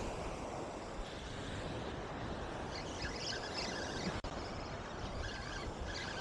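Steady wind rumbling on the microphone, with the wash of surf breaking on the beach behind it.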